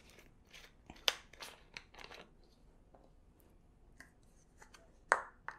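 Plastic screw cap being twisted off a bottle of coconut milk: a run of small, quiet clicks and crackles, with a sharper click near the end.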